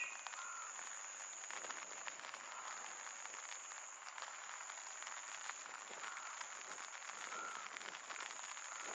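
Light rain falling, a steady faint hiss dotted with the ticks of drops, with a few short animal calls now and then.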